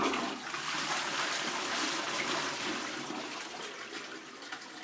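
Toilet flushing: a rush of water that starts suddenly, is loudest for the first couple of seconds, then slowly tapers off.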